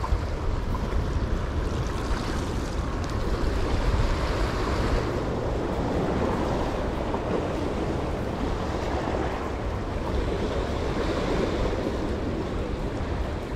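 Small ocean waves surging and washing over the rocks of a jetty, swelling and easing in slow surges, with wind rumbling on the microphone.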